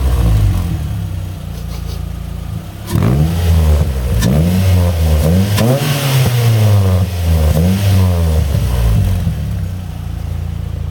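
Ford Fiesta ST engine through a Piper cat-back exhaust, dropping back to idle, then blipped in a string of quick revs about a second apart, each rising and falling in pitch, before settling to idle again near the end.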